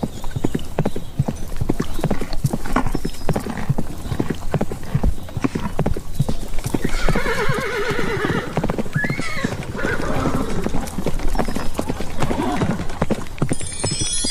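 Hoofbeats of galloping horses, dense and irregular, with a horse neighing in a long wavering call about seven seconds in.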